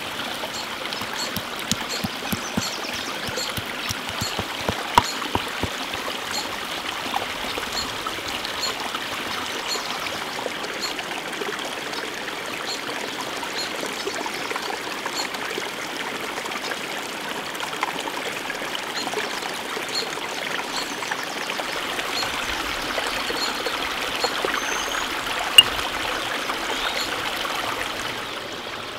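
Stone pestle grinding and pounding dried chillies and spices in a stone mortar, with scrapes and short knocks, over the steady running of a small stream. Near the end the grinding stops, leaving the stream.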